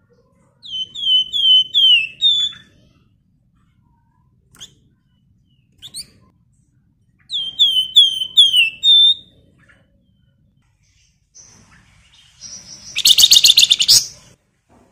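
Caged Javan fulvetta (flamboyan, wergan Jawa) singing: two phrases of about five quick downslurred whistles each, ending on a higher flat note, with a few single notes between. About 13 seconds in comes a loud, fast, rattling chatter.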